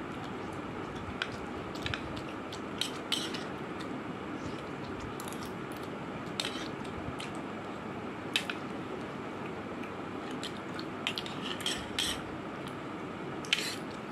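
Metal forks tapping and scraping against a plate of pasta, as scattered sharp clinks at uneven intervals, over a steady low hiss.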